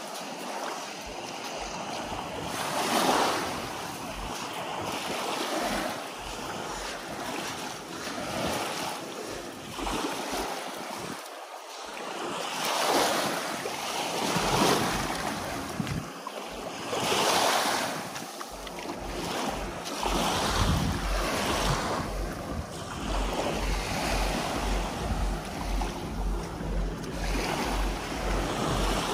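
Small sea waves washing against a rocky shore, surging and fading every few seconds, with wind rumbling on the microphone, more so in the second half.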